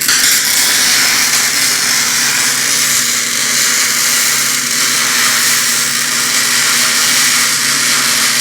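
Electric arc welding: a steady, loud frying hiss of the arc held without a break while a continuous bead is run across the top of a joint, over a low electrical hum.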